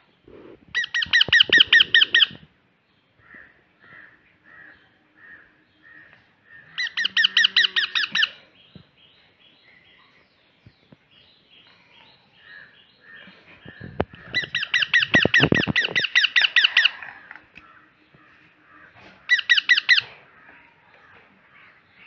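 Baby parrot's food-begging calls: four bouts of rapid, pulsing squawks, each lasting one to two and a half seconds, with fainter chirps in between.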